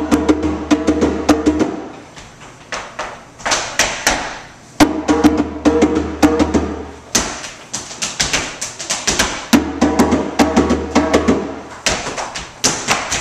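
Live stage music: sharp percussive knocks keep a beat, while a held chord with a deep bass note comes in three times, about two seconds each.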